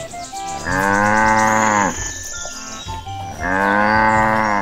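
Cow mooing twice: two long moos of a little over a second each, the second about three seconds after the first, over light background music.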